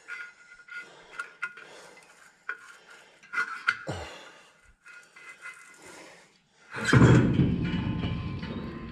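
Metal parts of a grain drill's fill auger mount clinking and clanking, then one loud, heavy metal clang about seven seconds in that fades out over a couple of seconds.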